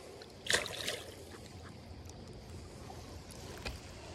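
Creek water running steadily, with a brief splash about half a second in as a hooked trout thrashes at the surface.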